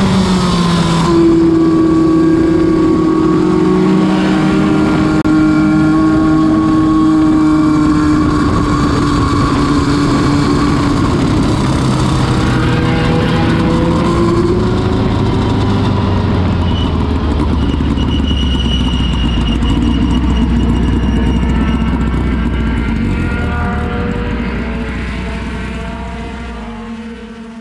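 Open-wheel race car's engine heard from on board while lapping at speed. About halfway through the revs fall away to a low, steady running note, and the sound then fades out near the end.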